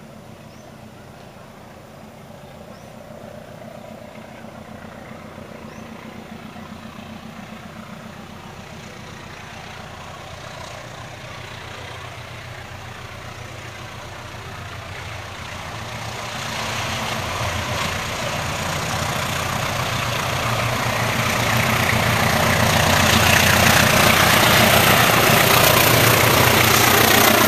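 Diesel-electric locomotive hauling a passenger train on approach: engine rumble and wheel-on-rail noise growing steadily louder, much louder from about two-thirds of the way in and loudest near the end as it draws close.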